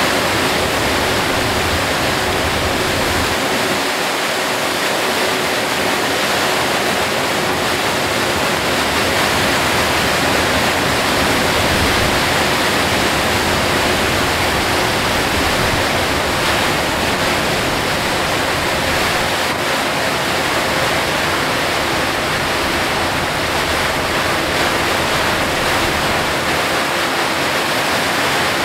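Torrential rain and wet-road noise around a moving Hino Selega HD coach: a loud, dense, steady rushing hiss.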